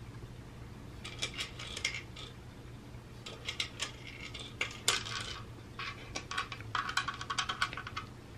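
Dry cat kibble rattling and clattering against the hard plastic tiers of a Catit Senses 2.0 Food Tree as a cat paws and noses at it. The clicks come in several short bursts, starting about a second in, with the busiest run near the end.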